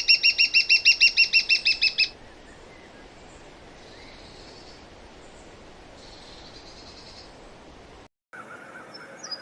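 Red-backed shrike calling: a rapid, even series of sharp, high notes, about eight a second, stopping about two seconds in. Faint background hiss follows, and near the end a different faint, wavering bird sound begins.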